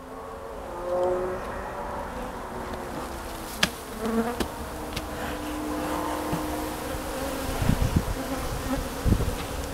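Honey bees buzzing around an opened hive, a hum of many bees whose pitch wavers. A sharp crack about three and a half seconds in as the bee-covered inner cover comes off, and a few low bumps near the end.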